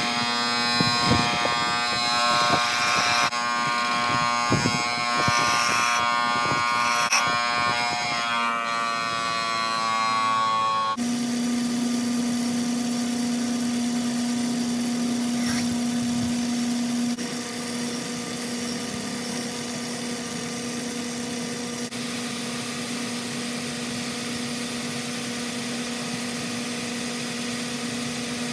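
Metal lathe running while turning the outside of a brass ring blank on a mandrel. For about the first third there is a ringing, many-toned cutting sound with occasional knocks; then it changes abruptly to a steadier machine hum, changing again a couple of times.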